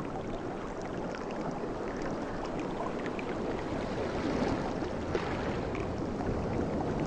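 Sea waves washing on a shore: a steady rush of water with small gurgling and trickling sounds, slowly growing louder as the next wave comes in.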